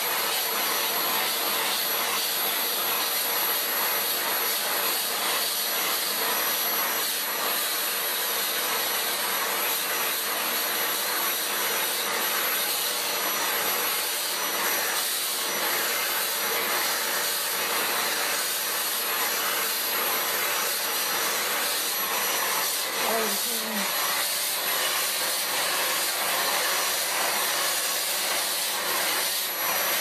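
Household vacuum cleaner (hoover) running steadily, its nozzle being passed over a cat's fur.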